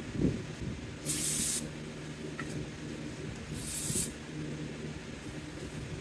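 Two short sprays from an aerosol can, each a hiss about half a second long, a couple of seconds apart.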